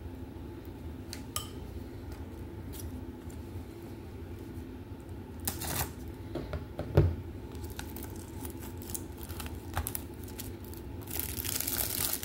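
Shrink-wrapped plastic Blu-ray case handled: scattered light clicks and taps of the case, with two louder knocks in the middle. Near the end the cellophane shrink wrap begins to crinkle as it is worked loose.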